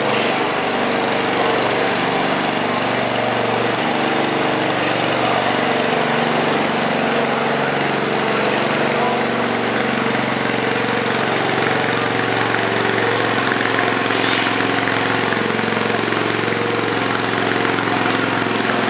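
Small garden tractor engine running steadily under load as it pulls a weight sled, its pitch wavering a little.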